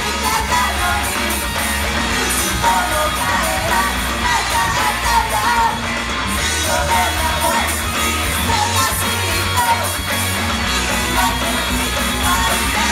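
Idol-group rock song performed live, with a heavy bass line and sung vocals over the venue's sound system, loud and continuous.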